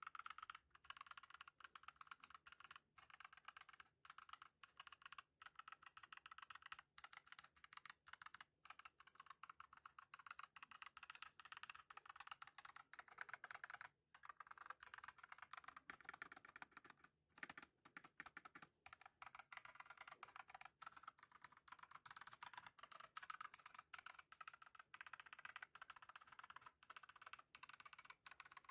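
Continuous fast typing on a mechanical keyboard with Akko CS Lavender Purple tactile switches and HyperX PBT pudding keycaps, a dense run of quiet keystroke clicks with brief pauses about halfway through.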